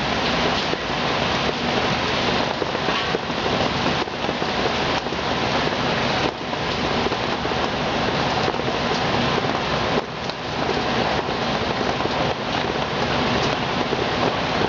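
Heavy hurricane rain and wind: a loud, dense hiss that swells and dips unevenly.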